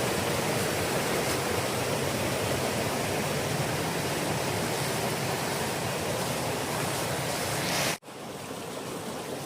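Close, steady rush of a waterfall's falling water. About eight seconds in it breaks off abruptly, then goes on more quietly.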